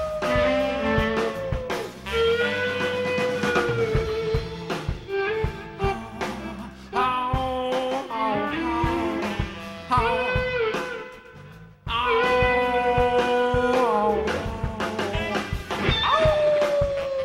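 A live electric blues band playing: drums, bass and electric guitar under long held lead notes that bend and fall in pitch. About eleven seconds in the band briefly drops away almost to nothing, then crashes back in together.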